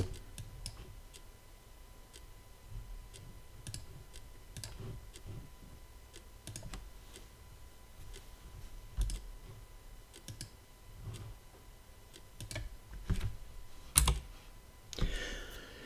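Scattered soft clicks from a computer mouse and keyboard, with a sharper click about 14 seconds in, over a faint steady tone.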